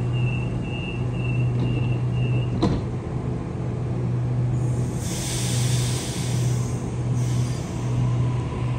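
A Sydney Trains Waratah double-deck electric train pulling out of the platform with a steady low hum, under a high repeated beep that stops about two and a half seconds in. A sharp clunk follows, then a burst of air hiss from about five seconds in as the train gets moving.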